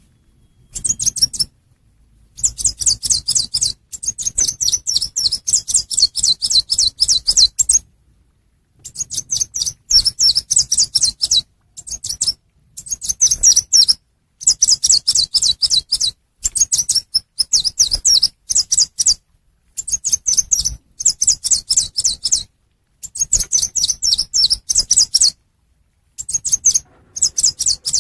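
Recorded lure calls of the chim sâu xanh, a small songbird: fast trains of high, thin chirps in bursts of one to three seconds, separated by short silences.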